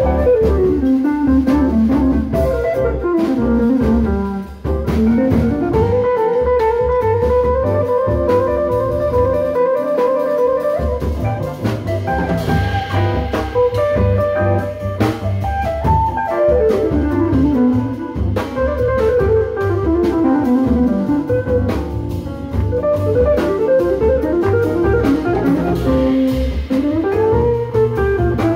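A live jazz band plays: an electric archtop guitar with keyboard, double bass and drum kit. Melodic runs of notes climb and fall, with one note held for several seconds in the first half, over a steady drum groove.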